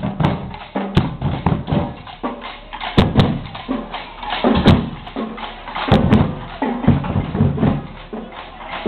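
Marching band drum section playing: booming bass drum hits with snare drums rattling between them, in an uneven pattern with strong accented strikes.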